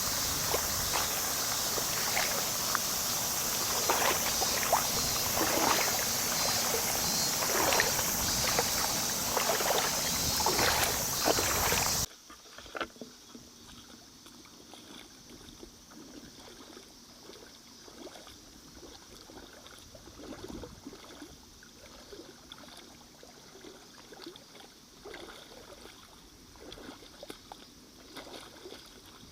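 Lake water splashing and lapping in many small strokes, under a steady high hiss. About twelve seconds in, the sound drops abruptly and the splashing goes on much quieter.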